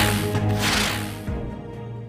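Music with sustained notes, fading out.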